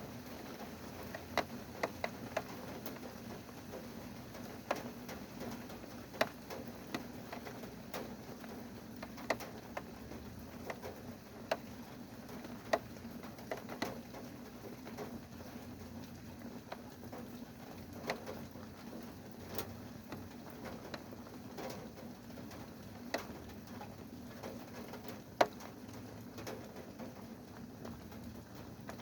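Rain dripping: single drops tapping a hard surface at irregular intervals, a few much louder than the rest, over a faint steady rain hiss and a low steady hum.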